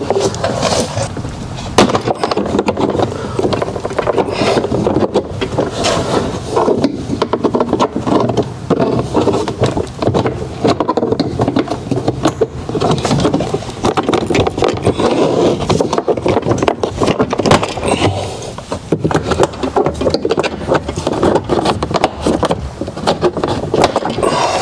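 Plastic door trim panel of a Volkswagen Mk7 Golf being pried and pulled off the door: continual scraping of plastic with many sharp clicks and knocks as its retaining clips are worked loose.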